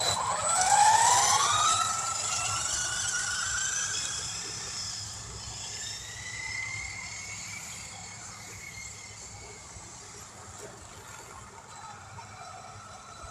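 An Arrma Typhon 3S RC buggy's electric motor whining as it accelerates hard from a stop, its pitch climbing over the first couple of seconds. The whine then slowly fades as the car drives away.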